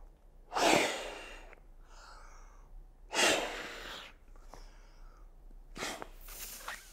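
A person inflating an inflatable travel neck pillow by mouth: three deep breaths, each blown into the pillow's valve, about two and a half seconds apart.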